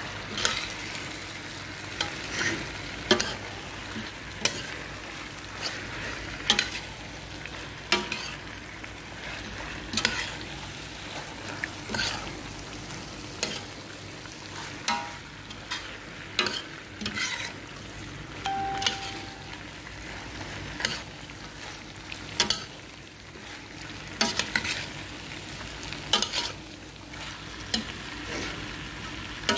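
Metal slotted spoon stirring chicken pieces in a stainless steel pot, knocking and scraping against the pot at irregular intervals. Food sizzles steadily underneath.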